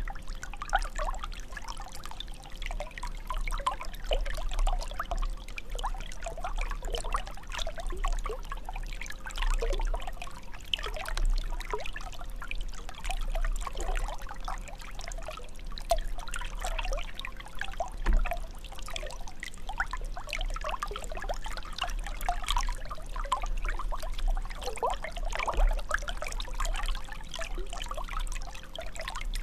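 Water trickling and gurgling steadily, like a small stream running over stones.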